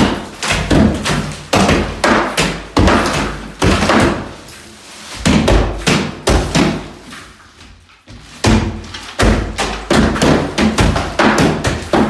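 Hammers smashing into drywall, a rapid, irregular run of heavy thuds from several swings, with a lull of a few seconds past the middle.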